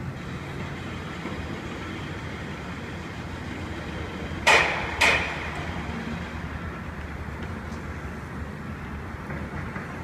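Two sharp bangs about half a second apart, the loudest sounds here, over a steady low rumble of distant construction-site and city traffic noise.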